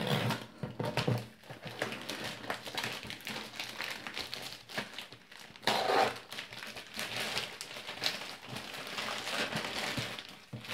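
Shipping packaging being handled and opened by hand: irregular crinkling and rustling with small clicks, a little louder about six seconds in.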